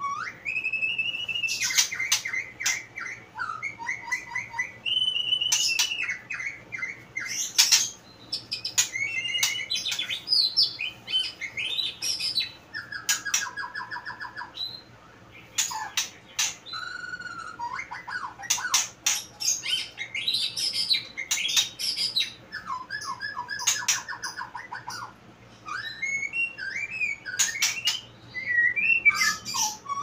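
White-rumped shama (murai batu) singing continuously: varied whistled phrases mixed with rapid trills and sharp clicking notes, with short gaps between phrases.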